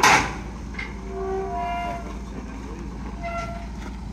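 Hinged steel loading ramp of a semi-trailer being swung down by hand: a sharp metal clang at the start, then the ramp's hinges squeal for about a second, with a shorter squeal near the end.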